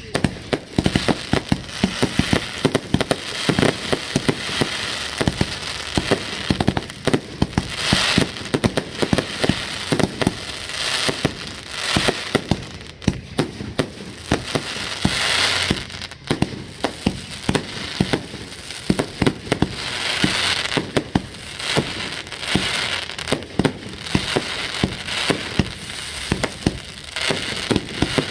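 Fireworks going off without a break: a dense run of sharp bangs, with stretches of thicker noise swelling up every few seconds.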